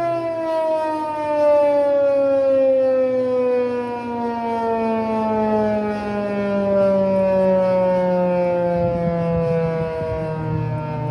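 American Signal T-128 outdoor warning siren winding down, its two-tone wail falling slowly and steadily in pitch.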